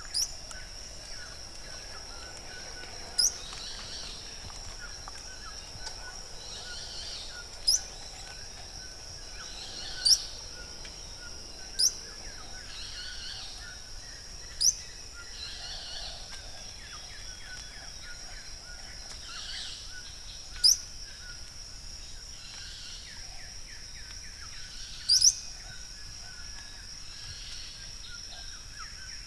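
Yellow-browed tody-flycatcher calling: a short, sharp, high note every two to five seconds, about eight in all, over a steady high-pitched background drone.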